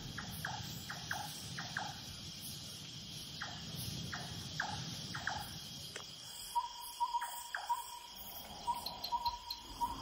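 Night-time forest ambience of crickets and other insects: a steady high-pitched drone, with a run of short falling chirps through the first half and a rapid pulsing call at one pitch starting about six and a half seconds in.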